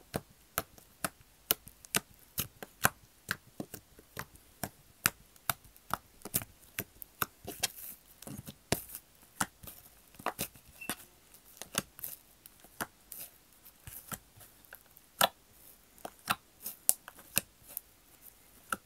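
Slime being squeezed and kneaded by hand, giving irregular sharp pops and clicks, about two or three a second.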